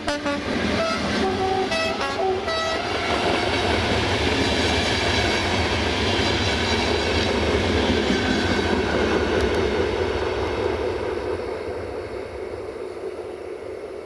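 Electric locomotive 477-247-7 sounding a few short horn toots in the first couple of seconds, then the loud rolling rumble of its passenger train's wheels on the rails as the coaches pass close by. The noise fades in the last few seconds as the train draws away.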